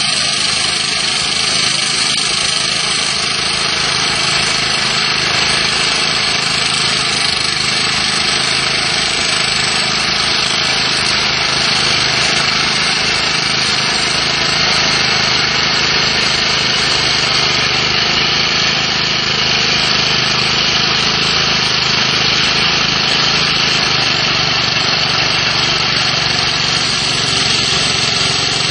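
Core drilling machine running steadily as its core bit cuts down into a concrete block, a continuous even motor and cutting noise.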